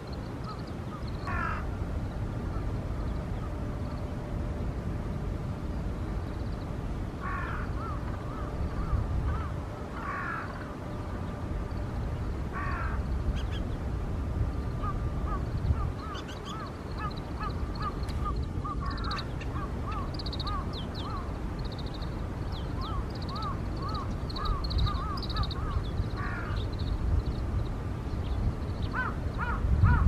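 Oriental greenfinch calling: short rolling 'koro-koro' trills every few seconds, then from about halfway a long run of evenly repeated chirping notes. A steady low rumble runs underneath.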